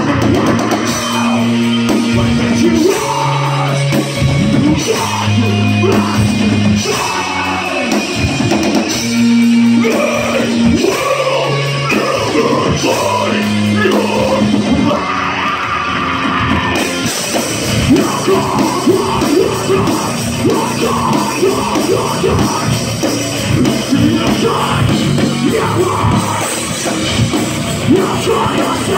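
Live heavy metal band playing loud, with distorted guitars, drums and yelled vocals. About seventeen seconds in the sound turns denser and brighter.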